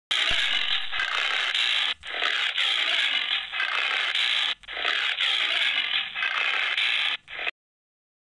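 Tiger snarling: three long rasping, hissing snarls of about two seconds each, then a short one, and it stops about a second before the end.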